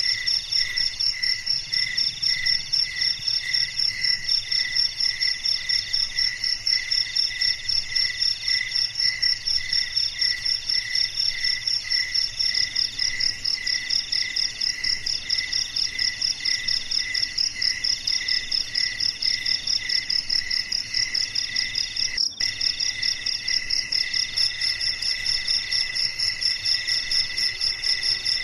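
Crickets and other night insects chirping steadily, several calls overlapping: one pulsing about twice a second, another coming in stretches of a second or so, and a rapid high trill above them.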